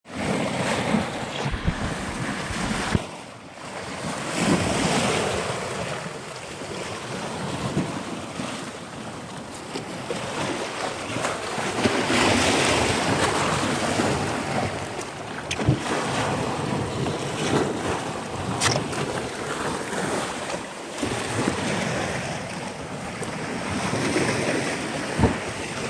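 Wind buffeting the microphone over the rush of sea surf, swelling and easing, with a few sharp clicks or knocks.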